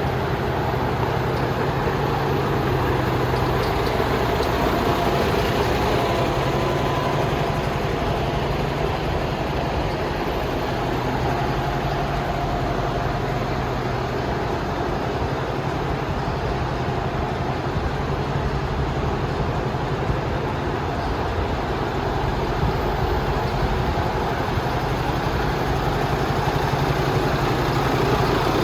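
Mercedes-Benz Antos 1827 truck's six-cylinder diesel engine idling steadily.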